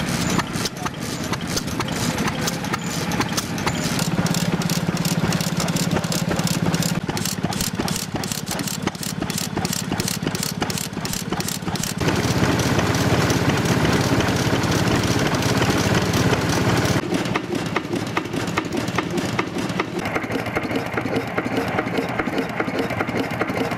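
Old Japanese single-cylinder stationary farm engines (hatsudōki) of the late 1930s to early 1940s running, with a steady rhythmic beat of firing strokes and valve-gear clatter. The sound changes suddenly about halfway through and twice more near the end, as a different engine is heard each time.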